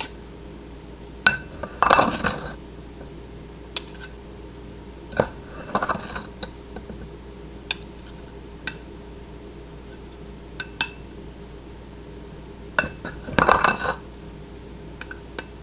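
Kitchen utensils and dishes clinking and knocking, a few scattered strikes with short busier spells near the start, in the middle and near the end, as sugar is scooped and measured out for a vinegar pickle brine.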